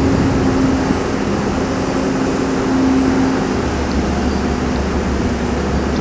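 Steady drone of running motor engines, with a low hum and a steady pitched tone in it.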